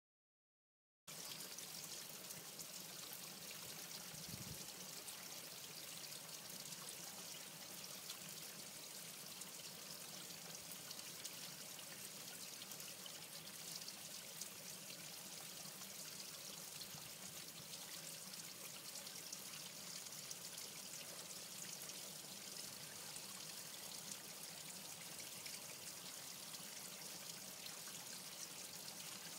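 Faint, steady trickle of running water in a garden pond, starting about a second in.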